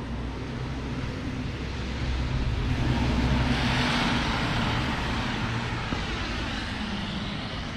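A vehicle passing by on the road: its tyre and engine noise swells to a peak about halfway through, then fades away. Under it runs a steady low engine hum.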